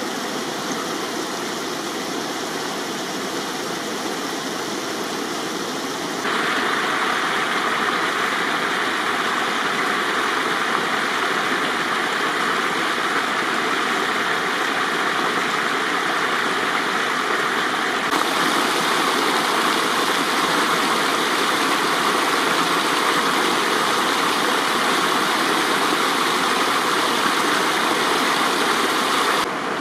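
Spring-fed water flowing down a hillside stream over small cascades, a steady rushing and splashing. The rush turns abruptly louder and brighter about six seconds in, then shifts again about two-thirds of the way through.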